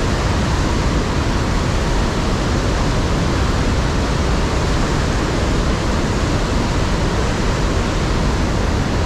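Iguazu Falls at the Devil's Throat: a loud, steady, unbroken rush of falling water.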